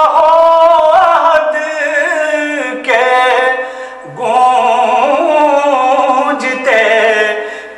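A solo voice singing an Urdu devotional hymn in long, drawn-out melismatic phrases with no words, the pitch gliding and wavering, with short breath breaks about three and four seconds in.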